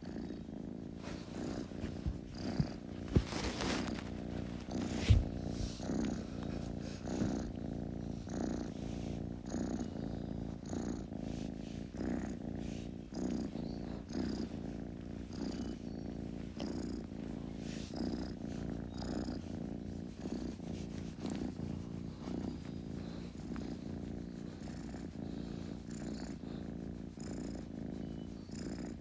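Kitten purring steadily, the rumble swelling and easing with each breath about once a second. A few brief thumps come about two to five seconds in.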